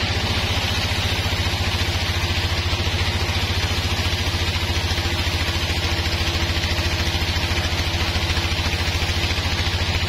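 Band sawmill running steadily: an engine drone with a fast, even pulse under a steady hiss.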